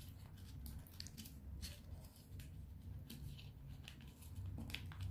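Folded colour paper rustling and crinkling in scattered short crackles as fingers press and tuck the grip of an origami paper spinning top into its frame, over a steady low hum.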